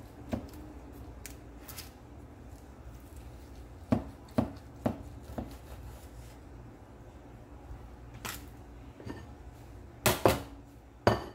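Kitchen knife cutting through a baked pasta casserole in an aluminium foil pan, making sharp clicks and crinkles as the blade strikes the foil. There are four clicks about half a second apart around four seconds in, and the loudest cluster comes near the end.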